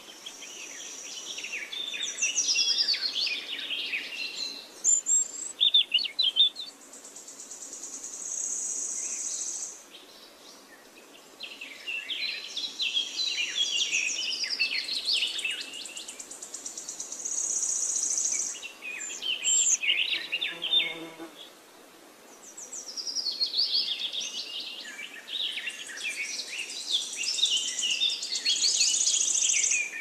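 Songbird singing in long phrases of quick squeaky whistles and chatter mixed with high buzzy trills. The phrases break off briefly about every ten seconds and then start again.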